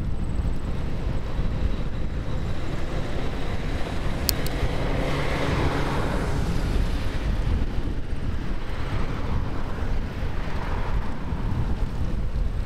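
Wind rushing over the microphone while cycling, with a vehicle passing that swells up and fades away about five seconds in. There is a short click just before it.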